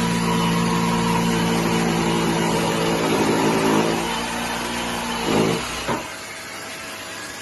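Milwaukee M18 Fuel cordless D-handle jigsaw cutting wood at its lowest speed, with a dust-extraction vacuum running alongside: a steady motor hum with blade rasp. The cutting stops about five and a half seconds in, followed by a sharp knock and quieter steady noise.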